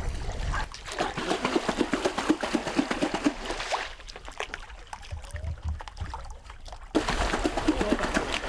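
River water sloshing and splashing, dense and crackly in the first few seconds and quieter in the middle; about seven seconds in it turns abruptly to a hand splashing hard in the river water.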